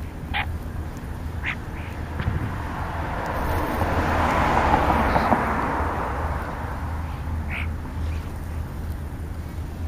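Short, harsh bird calls, three times, over a whooshing rush that swells and fades in the middle, with a steady low hum throughout.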